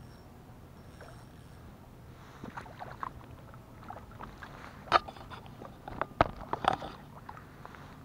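Splashes and sharp knocks as a hooked crappie is reeled to the side of a small fishing boat and lifted from the water, in an irregular run with the loudest hits about five and six seconds in.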